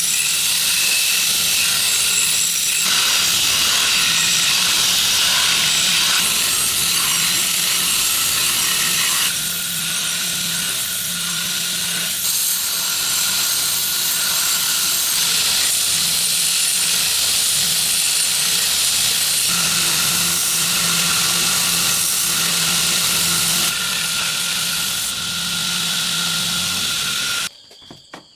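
Power grinder grinding the steel of a forged knife blade while it is sharpened: a steady hiss that shifts slightly in level every few seconds and cuts off suddenly near the end.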